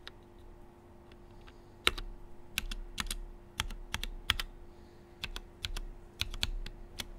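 Keystrokes on an XD84 75% custom mechanical keyboard with a top-mount aluminium case: separate, irregular key clicks at a slow typing pace, beginning about two seconds in after a brief lull.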